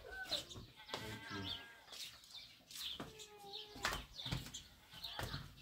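Goats bleating several times in short, wavering calls, with small birds chirping over them.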